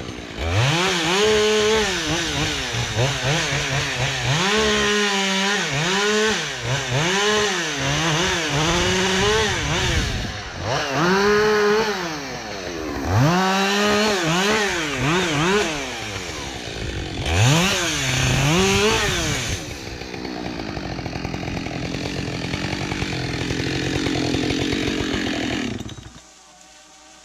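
Husqvarna 572XP two-stroke chainsaw, revved up and let fall back again and again. Its engine then runs more steadily for several seconds before the sound drops away near the end.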